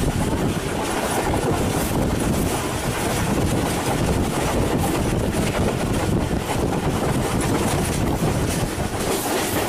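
Pakistan Railways railcar running at speed, heard from on board: a steady rumble of wheels on track, with wind buffeting the microphone.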